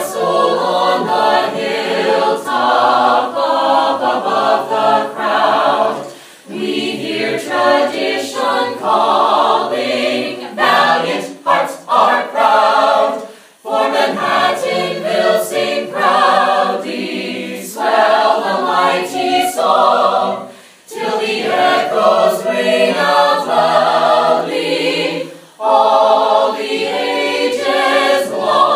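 An a cappella vocal group singing a college alma mater in harmony, in phrases of several seconds separated by four short breaks.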